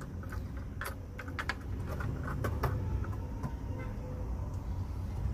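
Light clicks and taps of a diecast model truck being handled and set down on a wooden table, most of them in the first three seconds, over a steady low rumble.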